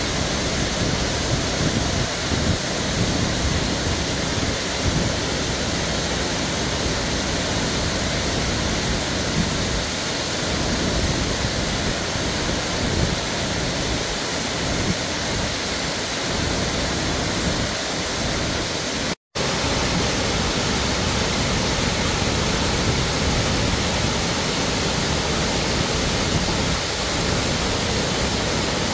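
Water pouring down the stepped concrete spillways of a dam, a loud, steady rush of falling and churning water. The sound cuts out for a split second about two-thirds of the way through.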